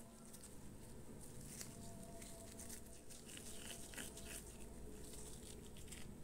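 Faint sticky patting, crackling and rustling of black rubber-gloved hands pinching bread dough closed and rolling it into a ball.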